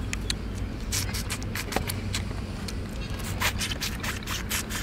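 Close-up eating sounds of cooked crab: a run of short, crisp crunches, clicks and smacks as the shell and legs are bitten and sucked, over a steady low hum.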